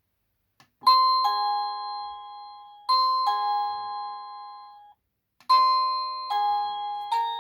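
EMASTIFF wireless doorbell chime playing its polyphonic ringtones. A high-then-lower two-note ding-dong sounds twice and then cuts off abruptly about five seconds in. A new tune of ringing chime notes, one about every 0.8 s, starts right after.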